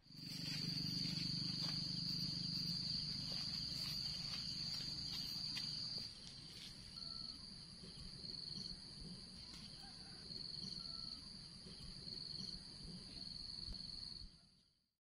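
Insects droning in a steady high-pitched chorus that breaks into a regular pulsing about six seconds in, over a low rumble that drops away at the same point. The sound cuts off suddenly near the end.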